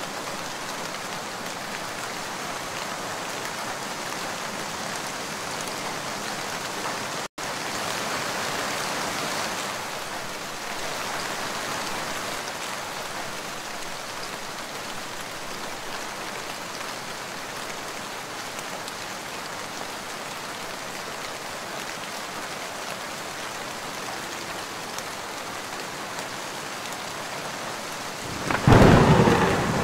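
Steady rain hiss from a dubbed rain-sounds track, cutting out for an instant about seven seconds in. Near the end a loud rumble of thunder starts.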